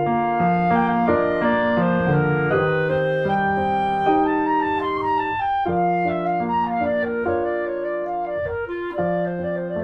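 Instrumental music: a melody of held notes over chords, with no voice.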